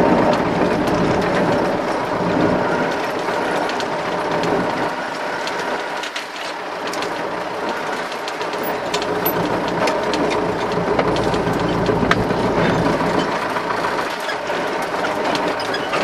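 MTZ-82 tractor's four-cylinder diesel engine running while under way, heard from inside the cab, with steady clattering and rattling of the cab's panels and windows. The deep part of the engine sound drops away for a few seconds about five seconds in, then comes back.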